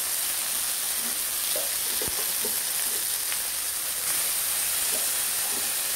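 Shallots, dried red chillies and green chillies sizzling steadily in hot oil in a stainless steel pot, well sautéed, with a slotted steel spatula scraping and ticking against the pot as they are stirred.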